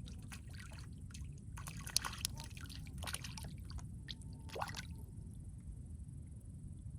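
Small splashes and drips of water in a few short clusters, the busiest a couple of seconds in and another brief one past the middle, over a steady low rumble.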